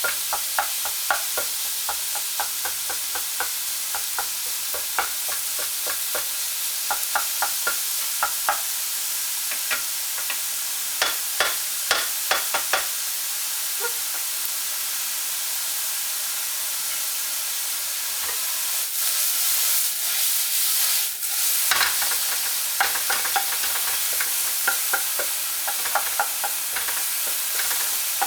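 Chicken pieces sizzling as they brown in hot oil in a pan, with a spatula clicking and scraping against the pan in quick runs as they are stirred. The sizzle swells louder about two-thirds of the way through.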